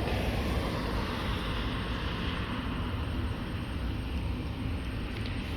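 Steady low vehicle rumble with a light hiss, no distinct events.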